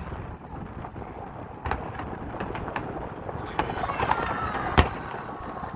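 Fireworks going off: scattered sharp pops and crackles over a steady background noise, with one loud bang near the end.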